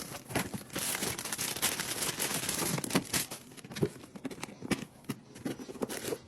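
Plastic packaging crinkling and rustling as a product is unwrapped, dense for the first few seconds, then scattered taps and knocks as it is handled.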